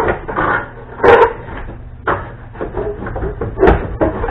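Metal clunks and knocks as a VW Beetle engine is worked back and lowered off its transmission while it catches on the clutch. There is a sharp clank about a second in and a heavy thud near the end.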